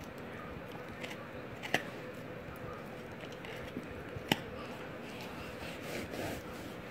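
A mother dog and her puppy play-biting on a bed: soft rustling of the blankets, two sharp clicks about two and a half seconds apart, and a louder patch of rustling near the end, over a faint steady hum.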